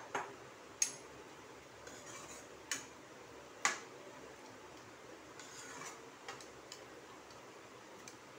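Steel spoon clinking against a steel kadhai while stirring a curry: a few sharp metallic clinks in the first four seconds, then lighter, scattered taps over a faint background hiss.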